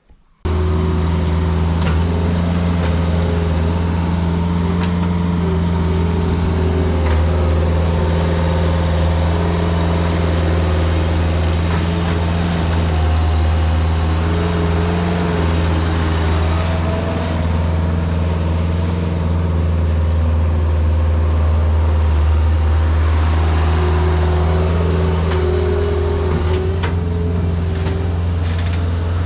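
New Holland L553 skid steer loader's engine running steadily while working, its pitch shifting slightly now and then.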